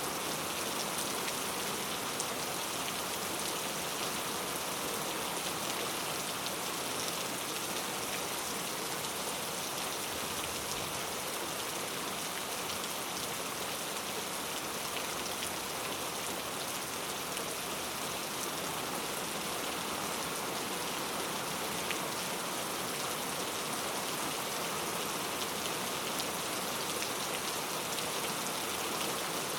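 Steady rainfall: a dense, even hiss of rain with fine scattered drop ticks, unchanging throughout.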